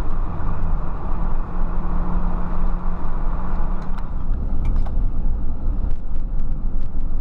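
Car driving along a road: a steady low engine hum under road and wind noise.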